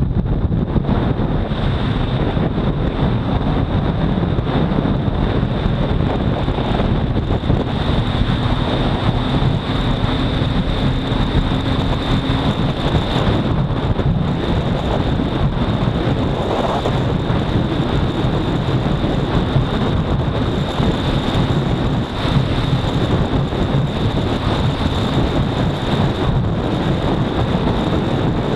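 Steady rush of wind on the camera microphone at highway speed, over the Honda CBR250R's single-cylinder engine running at a constant pace. A steady high-pitched whine sits above it.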